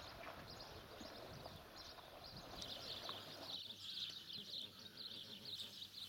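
Steady outdoor rumble at first, which cuts out about halfway through. Then a brood of domestic goslings peeping: many high, rapid, overlapping peeps.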